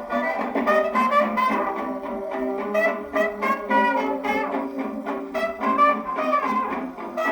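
A 1932 jazz-age dance band record played on a Victor 2-60 portable gramophone: saxophones and brass play an instrumental chorus. The sound is thin, with almost no bass.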